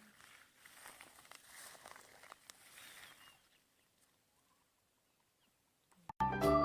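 Faint outdoor rustling with scattered small ticks, which fades to near silence halfway through. Near the end, keyboard music starts abruptly and is much louder.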